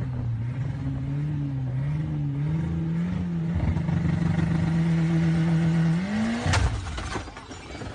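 A car's engine heard from inside the cabin while driving fast, its pitch wavering and then holding steady. It rises about six seconds in, then a sharp bang comes at about six and a half seconds and the engine note drops away.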